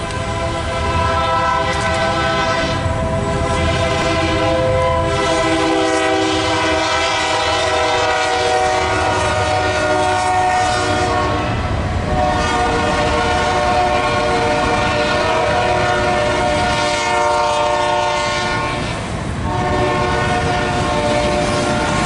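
Multi-tone air horn of Union Pacific freight locomotive UP 5866, a GE unit leading a manifest train, sounding long chord blasts with brief breaks between them: the warning for a grade crossing. A low rumble of the train runs underneath.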